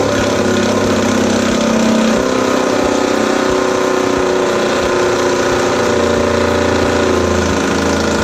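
Cordless impact driver running continuously as it drives a 1/4-20 brass threaded insert into a wooden slab table top. Its pitch shifts a little about two seconds in and again near the end.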